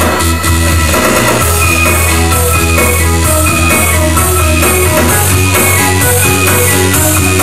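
Live band playing an instrumental passage: a steady drum beat over a sustained bass line and repeating keyboard and guitar notes, with no singing.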